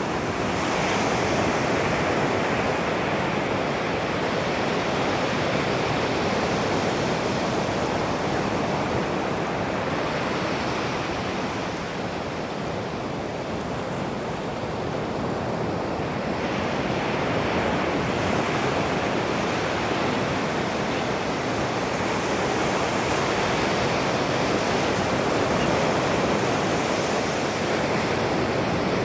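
Ocean surf breaking and washing up a sandy beach: a steady rush of waves that eases a little about halfway through and then builds again.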